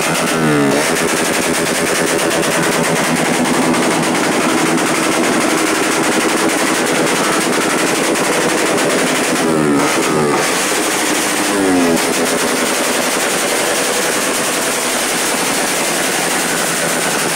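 Suzuki Raider 150 Fi single-cylinder motorcycle engine being revved, with rapid, continuous backfire crackling from the exhaust like machine-gun fire. Three times the engine note drops away after a rev: about half a second in, around ten seconds, and near twelve seconds.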